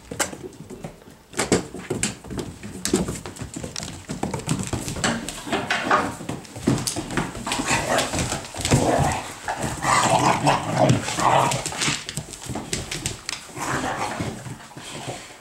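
Several puppies playing and tussling, with whimpers and short barks. Their claws click on a hardwood floor throughout. The dog sounds are loudest from about nine to twelve seconds in.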